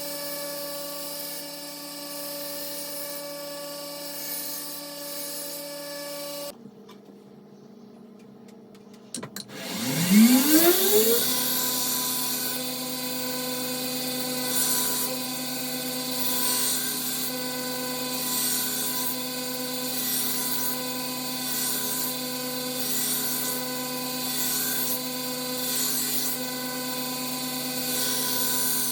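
Belt grinder motor running steadily; about six and a half seconds in the sound drops away, and about ten seconds in the motor spins back up with a rising whine. It then runs steadily while the knife blade is ground against a coarse 50-grit belt, a rasp that swells and fades about every second and a half.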